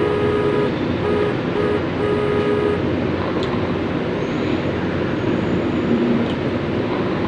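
Steady road-traffic noise. Over it, a flat-pitched horn sounds in several short blasts of different lengths during the first three seconds.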